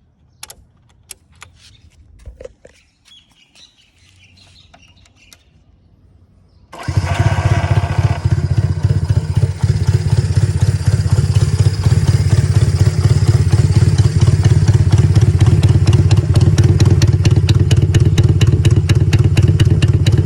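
Small clicks, then about seven seconds in a Honda C95's parallel-twin engine starts suddenly and settles into a steady idle. The engine is freshly restored and runs on an electronic points-replacement ignition and coil.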